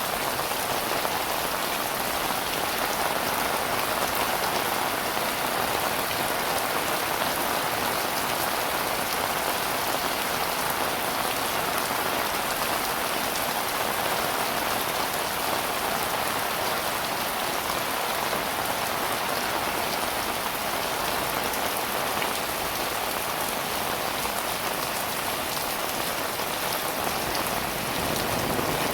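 Heavy rain falling steadily, a dense even hiss of drops with a fine crackle of individual impacts.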